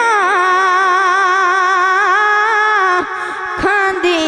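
A boy's solo voice singing a naat into a microphone: one long held note ornamented with quick wavering turns, with no instruments. It breaks off briefly about three seconds in and starts again.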